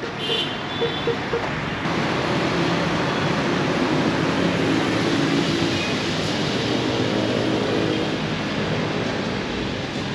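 Street traffic noise: a motor vehicle's engine running close by over steady road noise.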